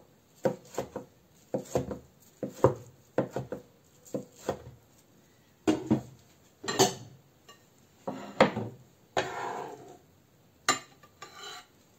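Broad-bladed knife chopping a fried breaded chicken breast into strips on a wooden cutting board: a run of sharp knocks of the blade on the board. After a pause come scrapes and louder knocks as the chicken is moved and a ceramic plate is set down.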